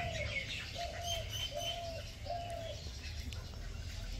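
A dove cooing: a phrase of about four short, falling coos, with smaller birds chirping over the first half.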